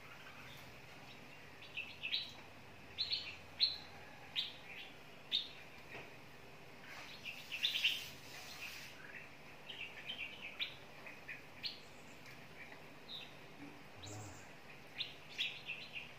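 A flock of red-whiskered bulbuls calling: scattered short, high chirps, at times several a second, starting about two seconds in.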